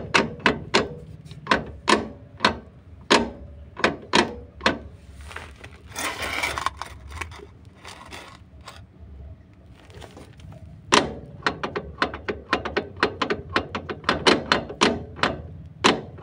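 Worn propeller-shaft cross joint (universal joint) on a Nissan Terrano clacking metal on metal as it is rocked back and forth by hand, a run of sharp clicks a few times a second. The clicks thin out in the middle and come quicker again near the end. The free play is the sign of a worn-out joint, the cause of the clunking heard when shifting gear or pulling away.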